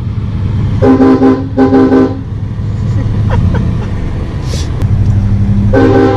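Truck-mounted train horns sounded in two short chirps about a second in, then blown again near the end, over the pickup's low engine and road rumble heard from inside the cab.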